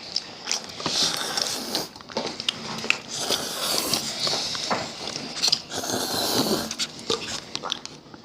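Close-miked eating of instant ramen noodles: slurping and chewing, with scattered sharp clicks throughout.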